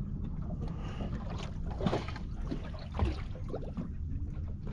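Steady low rumble of wind and water around a small fishing boat, with scattered light knocks and clicks.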